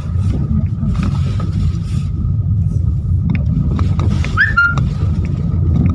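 Car driving slowly along a rough dirt track, heard from inside the cabin: a steady low rumble of engine and tyres on the unpaved surface, with scattered small knocks. A brief rising chirp sounds about four seconds in.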